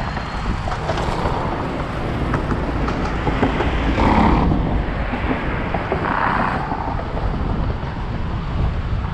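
Wind buffeting the microphone as a steady low rumble, with brief louder gusts about four and six seconds in.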